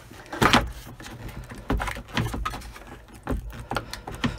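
Plastic wiring-harness plug on the back of a tractor instrument cluster being unlatched and wiggled loose: a series of short clicks and rattles as the latch is pressed and the plug worked free.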